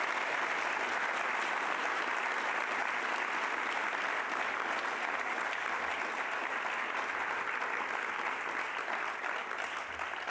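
Audience applauding: dense, steady clapping that starts to thin near the end.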